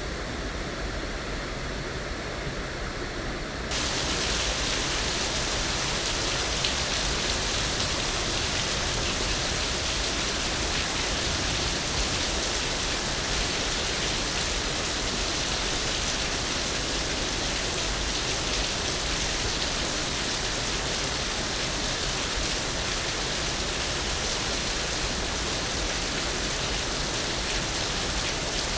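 Steady rushing water noise for sleep, an even hiss like heavy rain or falling water. About four seconds in it jumps abruptly to a louder, brighter sound, then holds steady.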